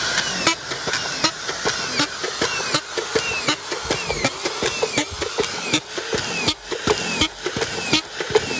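Muro stand-up auto-feed screwdriver driving 2.5-inch deck screws from a collated coil into deck boards in rapid succession, about two screws a second. Each one comes with a sharp clack as it seats and a short falling whine from the motor.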